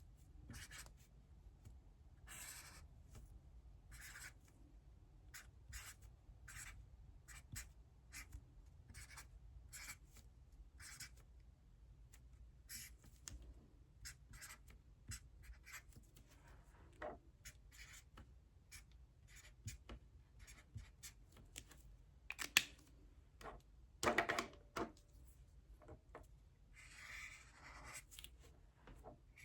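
Writing by hand on paper: a steady run of short, faint scratchy strokes as problems are worked out, with a couple of louder knocks about two-thirds of the way through and a longer scratching stretch near the end.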